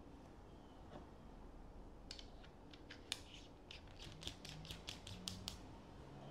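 Faint, irregular small clicks, about a dozen of them starting about two seconds in, as a metal sealing disc is handled and pressed into the back of an AEA Harpoon pistol's red air cartridge.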